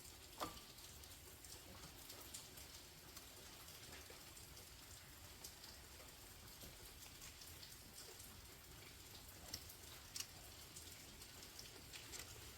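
Faint steady patter of rain. A light clink comes about half a second in, and a few soft clicks follow later.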